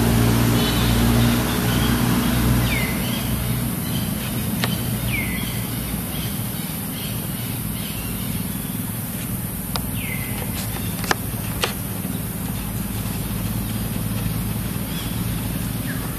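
A motor vehicle's engine hums steadily, loudest in the first couple of seconds and then fading. A bird gives short chirps that drop in pitch, about four times, and a few sharp clicks sound in between.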